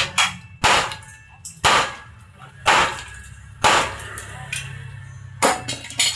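A series of sharp bangs, roughly one a second, each with a short ringing tail, over a steady low hum.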